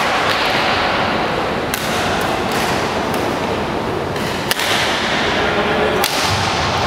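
Badminton rally: rackets hitting the shuttlecock in several sharp smacks about half a second to a second and a half apart, the strongest near the end, over the steady background noise of a large sports hall.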